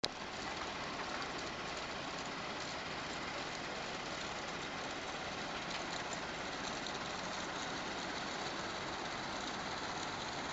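Construction and demolition waste recycling plant running: a steady, even mechanical din of its machinery.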